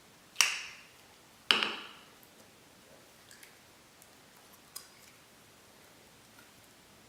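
Thick clear slime being squeezed and played with, giving two loud, sharp pops about a second apart, then a few faint clicks.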